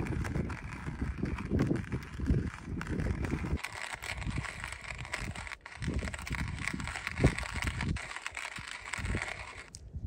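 Hand-crank manual coffee grinder grinding coffee beans, with wind gusting on the microphone.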